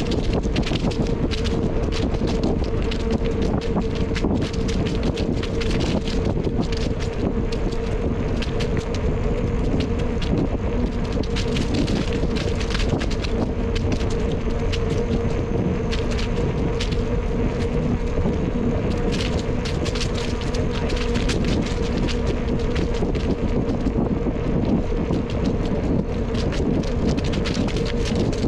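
Wind buffeting the microphone of a camera on a moving bicycle, over a steady hum. Small clicks and rattles from the ride run throughout.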